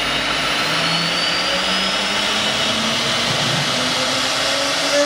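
6 kW spindle of a 1325 CNC router running, a steady loud rush of machine noise with a high whine that rises slowly in pitch over the first couple of seconds.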